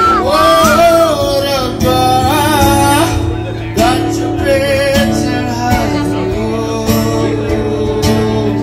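Live acoustic music: a man singing a melody to his own acoustic guitar accompaniment.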